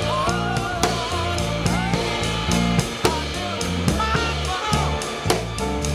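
Rock band rehearsal jam on electric guitar, bass and drum kit, with a lead line of bending notes over steady drum hits.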